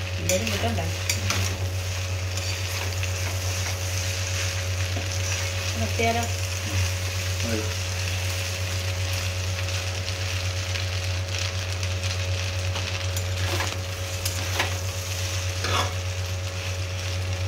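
Pasta frying in a wide metal wok with a steady sizzle while a spatula stirs it, scraping and knocking against the pan now and then. A steady low hum runs underneath.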